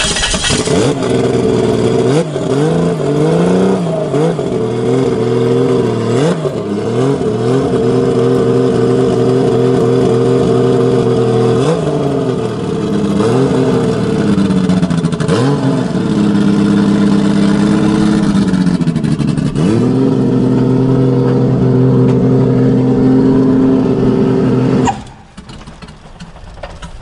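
Turbocharged 2JZ inline-six engine of a swapped Lexus SC400 running as the car pulls away and drives off, its pitch rising and falling with the throttle several times before holding steady. The sound cuts off sharply near the end.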